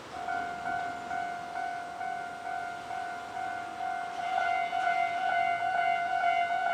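Railway level-crossing warning bell starting suddenly and ringing on in an even, repeating electronic tone, louder from about four seconds in.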